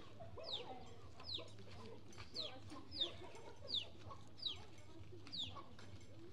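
Chickens clucking, with a short, high, falling call repeated about once a second.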